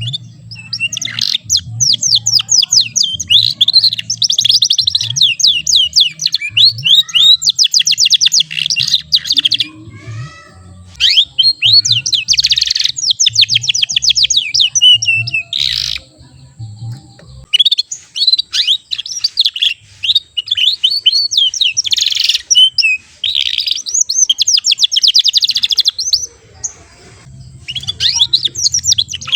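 Young canary singing practice song: phrases of rapid, high chirping trills a few seconds long, broken by short pauses. The rolls are still short, typical of a juvenile canary that is still learning its song.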